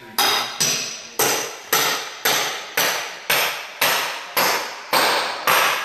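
A hammer striking steadily, eleven sharp blows about half a second apart, each dying away before the next, part of demolition work tearing up old layered floor tile.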